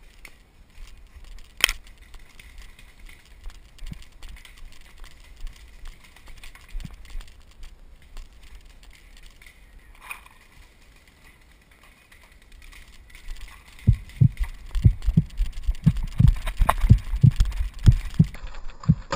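Footsteps of a paintball player moving through brush: quiet for most of the stretch, then rapid low thumps, about three or four a second, as he runs, jolting the head-mounted camera. A single sharp click about two seconds in.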